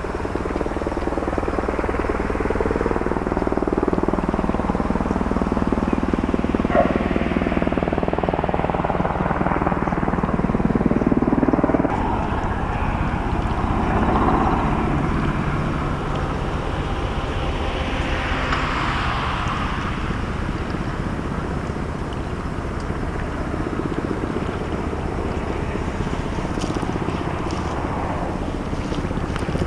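Steady low drone of a ship's engine as the vessel comes into port, mixed with wind noise on the microphone; the deepest hum drops away about twelve seconds in.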